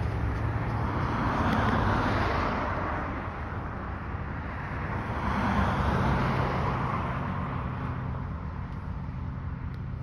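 Whelen WPS-4004 electronic siren sounding in a test, its rotating speaker array making the sound swell and fade twice, about every four seconds.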